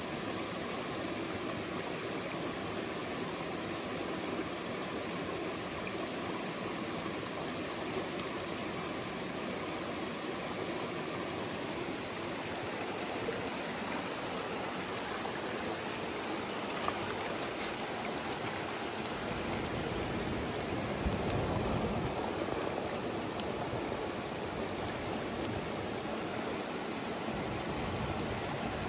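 Mountain stream rushing steadily over rocks. A deeper, low rumble joins for several seconds past the middle.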